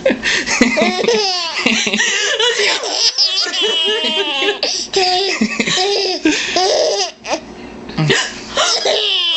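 Baby laughing hard in repeated bursts of high-pitched giggles and squeals, with an adult laughing along. The laughter breaks off briefly near the end, then starts again.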